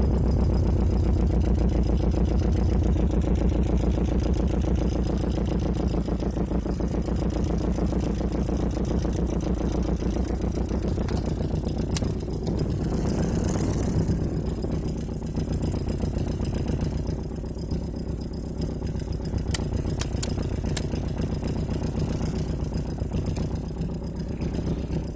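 Nissan S14's four-cylinder engine idling steadily, easing gradually quieter, with a few light clicks in the second half.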